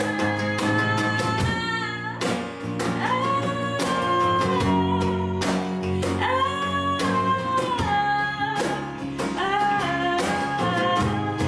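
Live acoustic band music: acoustic guitar, bass and cajon keep a steady beat under long, held melody notes.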